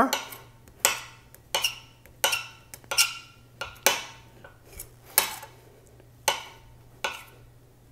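Chef's knife chopping through brownie pieces and striking a granite countertop, a sharp clack about every three quarters of a second. The blade rings briefly after some strikes.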